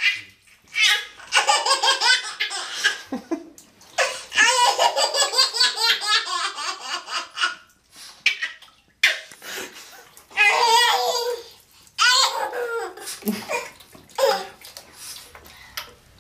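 Baby laughing hysterically in repeated bouts of belly laughter, with short breaths and pauses between them; the longest bout lasts about four seconds.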